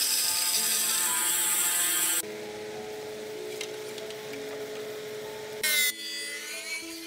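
Bandsaw blade cutting through a wooden cabinet panel, a loud steady hiss that stops abruptly about two seconds in. Background music with held notes plays throughout, and a short loud burst from a power tool comes near the end.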